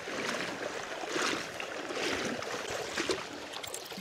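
A person wading across a shallow stream in waders: water sloshing around the legs, with a few louder splashes about a second apart.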